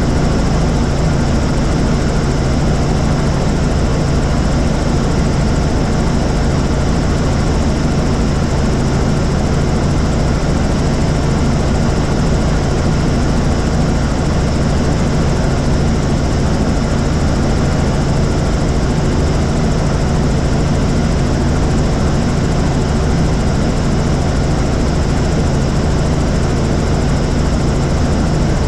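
Helicopter in flight: steady, loud rotor and engine noise with a constant low drone and a wide hiss above it, not changing.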